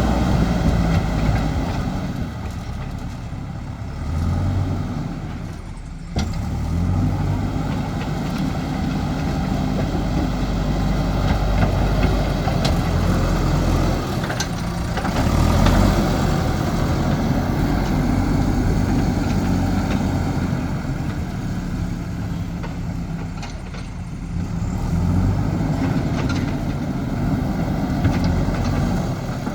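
JCB backhoe loader's diesel engine working, its note rising and falling as the machine takes load, with a few short knocks.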